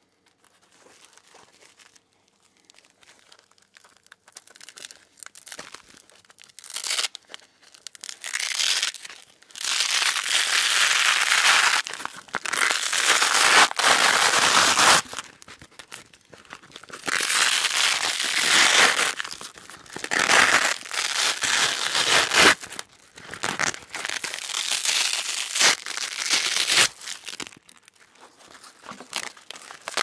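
Velcro hook-and-loop strips ripped apart from the middle, close to the microphone: faint scratching at first, then from about seven seconds in a run of loud rips, each lasting a few seconds, with short pauses between.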